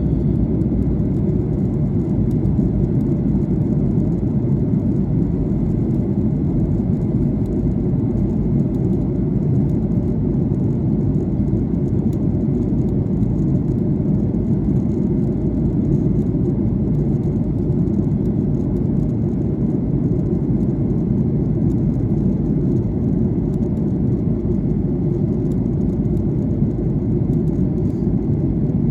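Airliner cabin noise during descent: a steady, even low rumble of engines and airflow, with a faint steady high tone over it.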